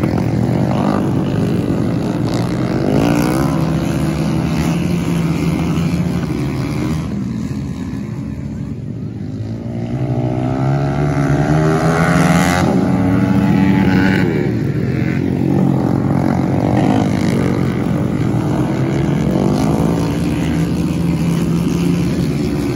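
A pack of 450 cc flat-track racing motorcycles running hard around a dirt oval, engines revving up and down through the corners and straights. The sound fades down about eight seconds in and comes back louder a few seconds later as the bikes pass close.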